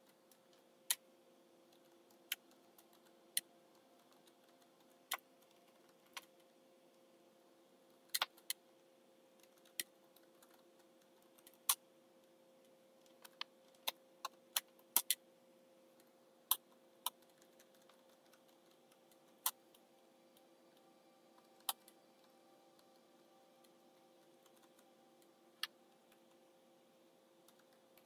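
Computer keyboard keys pressed one at a time at an uneven, unhurried pace: a few dozen separate clicks, over a faint steady hum.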